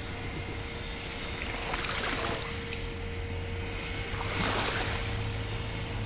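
Radio-controlled model boat's 775 12-volt electric motor running with a steady thin hum as the boat cruises. Two swells of rushing water and wind noise pass over it, about two seconds in and again about four and a half seconds in.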